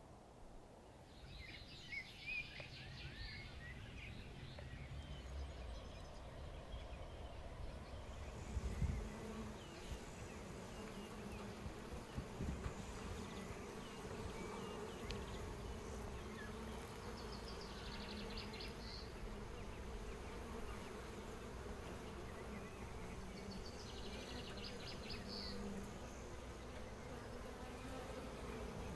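A mass of honeybees buzzing steadily around an opened hive. A few sharp knocks come about nine and twelve seconds in.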